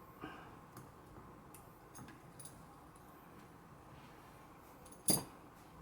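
Scattered small clicks and light metallic clinks of small hardware and tools being handled during the guitar's reassembly, with one sharper click about five seconds in.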